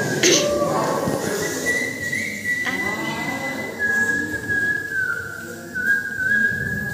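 A man whistling a slow tune into a microphone in long, held notes, the pitch dipping briefly and returning near the end. Two short knocks come about a quarter second in and just under three seconds in.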